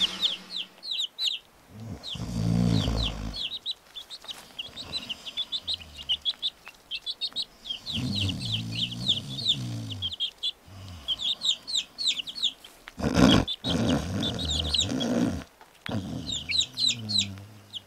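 Small birds chirping rapidly and continuously, with low drawn-out calls coming and going underneath. A short loud burst of noise about thirteen seconds in is the loudest moment.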